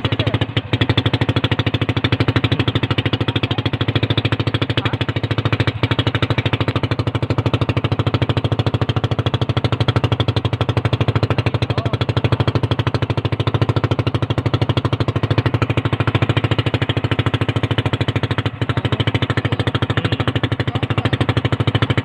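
Small motorboat's engine running steadily under way, a fast, even chugging with no change in speed.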